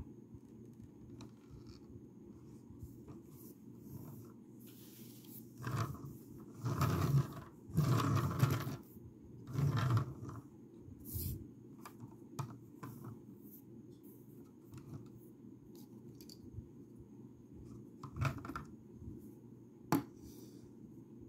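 Hands handling plastic Lego pieces: scattered small clicks and taps, with a few seconds of louder rustling and scraping about six to ten seconds in.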